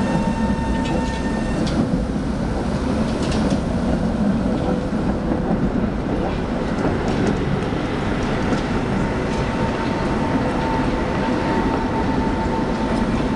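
Steady city street noise with a tram running on street tracks. The tram gives a faint steady whine at the start and again in the last few seconds, with a few short clicks early on.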